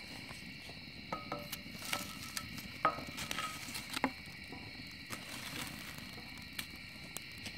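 Wood fire crackling in a metal fire pit, with a cluster of sharp pops and snaps from about one to four seconds in. A steady chorus of insects chirps behind it throughout.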